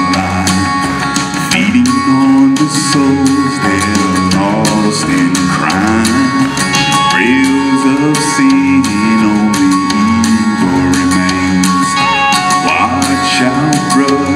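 Music: a men's gospel vocal group singing through microphones, several voices together over a low, steady bass part.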